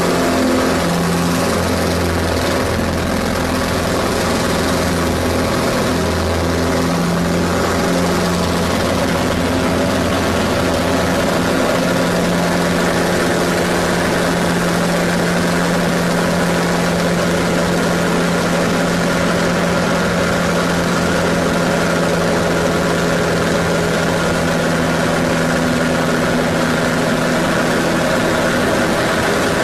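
Pitts Special aerobatic biplane's piston engine and propeller heard from inside the cockpit, a loud steady drone. The engine note shifts about a third of the way through as the aircraft manoeuvres.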